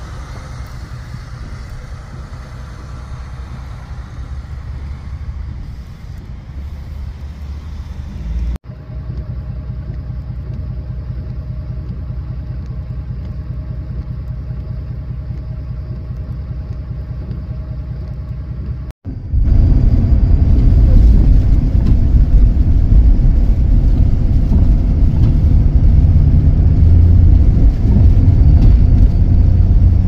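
Steady low vehicle noise in three cuts: the engines of a stopped snowplow truck and tanker truck running, then a quieter steady hum. About two-thirds of the way in comes a much louder low rumble of a vehicle driving on a snow-packed highway.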